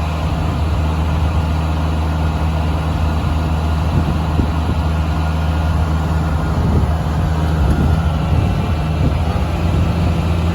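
Engine powering a Foley Belsaw circular sawmill, running steadily.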